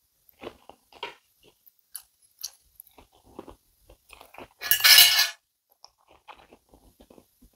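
A person chewing a bite of sausage, with metal cutlery clicking and scraping on a ceramic plate in small scattered ticks. About five seconds in comes one short, loud rush of noise.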